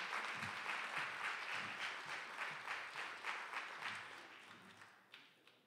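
Audience applauding at the end of a speech, the clapping slowly dying away over about five seconds.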